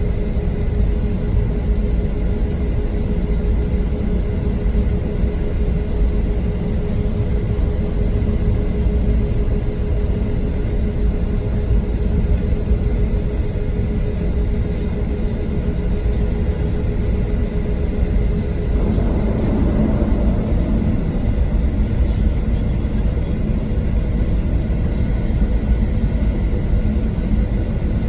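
Cabin noise inside a Boeing 737-700: a steady, deep rumble of engines and airflow with a constant hum on top. The hum drops out about two-thirds of the way through.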